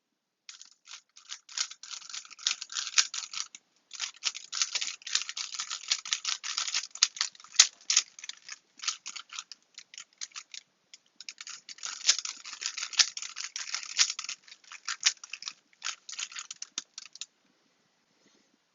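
Plastic 3x3 Rubik's Cube being twisted rapidly to scramble it: a dense run of clacking clicks, with short pauses about four, eleven and sixteen seconds in, stopping shortly before the end.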